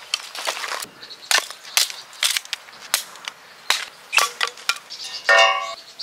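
Dry firewood being broken into kindling: a series of about a dozen sharp wood cracks, irregularly spaced. A short ringing note sounds near the end.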